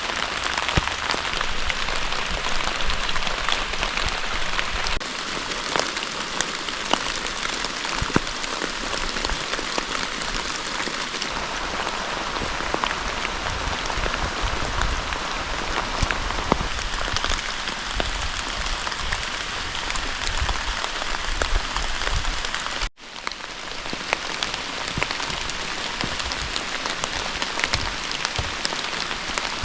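Steady rain pattering, a dense hiss full of small drop ticks, which cuts out for a moment about 23 seconds in before carrying on.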